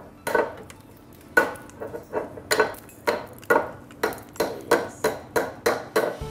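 A small hammer tapping the hard seal on the neck of a Beluga Gold Line vodka bottle: about a dozen sharp taps that come faster toward the end, chipping the seal away to open the bottle.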